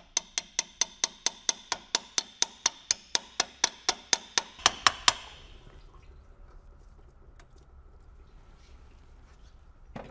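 Hand ratchet clicking steadily, about five clicks a second, as a water pump bolt is backed out. The clicking stops about five seconds in, and a short clatter comes near the end.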